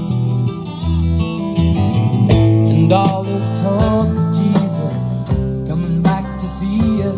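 Music playing through a pair of Franco Serblin Accordo two-way stand-mounted loudspeakers: a guitar track with some bending notes over deep bass notes.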